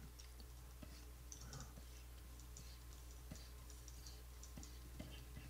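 Faint, irregular clicks and taps from a computer keyboard and drawing stylus, over a low steady hum.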